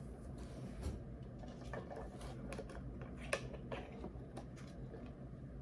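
Scattered light clicks and taps of small objects being handled, one sharper click about three seconds in, over a low hum.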